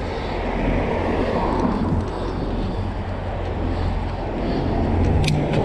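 Wind and road noise while riding a pedal bike in traffic: a steady, loud rush with a low hum underneath. Two short clicks come near the end.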